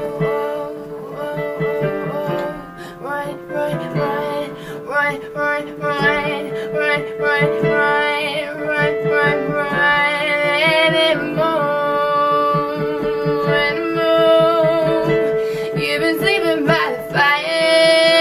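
A woman singing with acoustic guitar accompaniment, her held notes wavering with vibrato.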